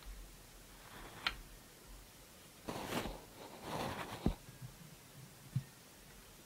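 Objects being handled: a light clink about a second in, two short bursts of rustling near the middle, then two soft thumps.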